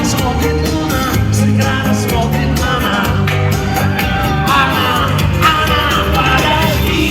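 Live pop band music with a steady drum beat, bass and singing.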